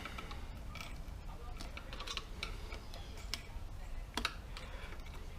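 Light clicks and taps, a few seconds apart, of hand tools and metal engine parts being handled while the water pump is worked out of the engine, over a faint steady low hum.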